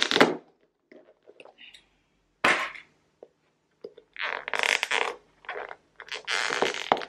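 Clear plastic lids on takeout food containers being pressed and pried off, creaking and crackling in separate bursts. The longest bursts come after about four seconds.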